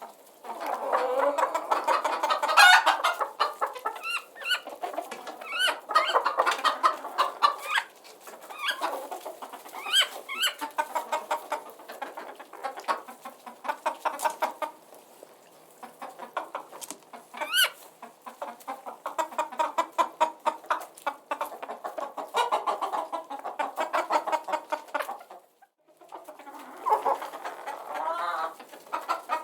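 A flock of chickens clucking, several birds calling over one another in quick runs of clucks, with an occasional sharper, higher call. There is a brief lull about 25 seconds in.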